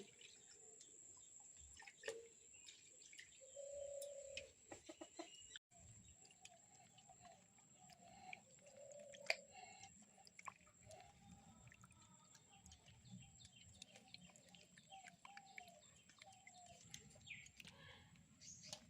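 Faint hens clucking in short repeated calls, with small birds chirping and occasional light clicks and knocks.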